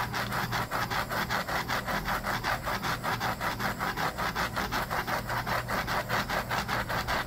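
Handheld heat gun blowing hot air over a rotating epoxy-coated tumbler, a steady rush with a fast, even pulsing of about seven or eight beats a second. It is warming a thin first coat of epoxy so the coat relaxes and smooths. It cuts off just before the end.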